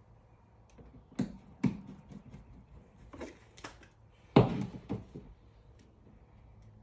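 A handful of sharp knocks and clunks, about six, loosely in pairs, the loudest about four and a half seconds in.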